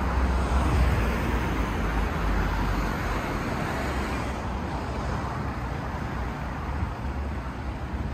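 Road traffic noise on a city street. The rumble swells in the first couple of seconds, as a passing vehicle would make it, then eases to a steady level.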